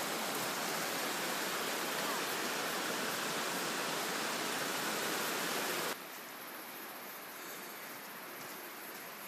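Steady rushing of falling water, an even hiss, that cuts off suddenly about six seconds in to a much quieter background.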